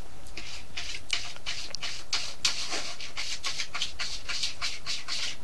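Kitten sucking on a finger, making rhythmic sucking and smacking noises about three times a second.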